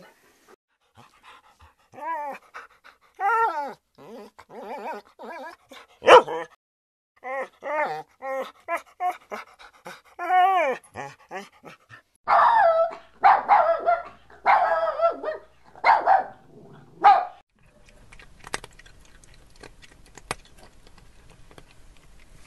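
A puppy whimpering and yipping in a string of short cries that rise and fall in pitch, then a run of louder, harsher yaps about twelve seconds in, trailing off into faint ticks near the end.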